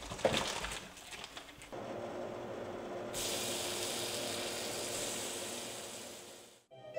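A few light handling clicks, then bacon strips sizzling in a hot stainless-steel frying pan, a steady hiss that gets brighter about three seconds in and fades away near the end.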